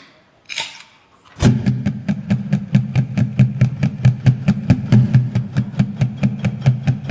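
Beer bottles tapped in a fast, even rhythm of about six strikes a second, over a steady low hum, starting about a second and a half in after a few short rustling noises.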